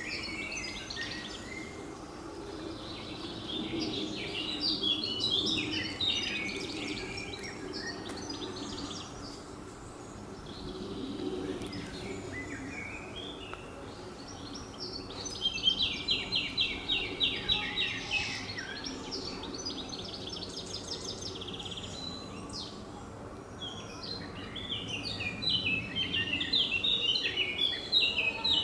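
Songbirds singing in bursts of quick, high chirping notes, including one long, evenly paced run of notes midway. A steady low background rumble runs underneath.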